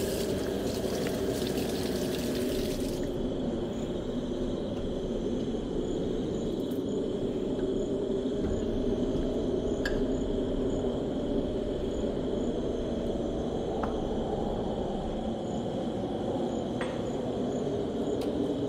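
Kitchen faucet running onto hands and into a farmhouse sink for about three seconds, then shut off. A steady low rumble runs underneath throughout, with a few light clicks of dishes and cutlery later on.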